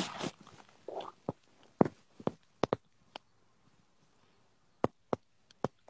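About ten short, sharp clicks and taps at irregular spacing, with near quiet in between and a longer gap around the middle.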